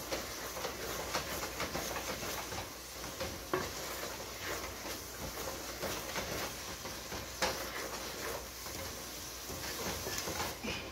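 Wooden spoon stirring and beating a thick, sticky grated-coconut and sugar mixture in an aluminium pot, scraping and clicking steadily, with a couple of sharper knocks against the pot. The coconut fudge (dous kokoye) is being beaten on the heat so that it thickens and sets.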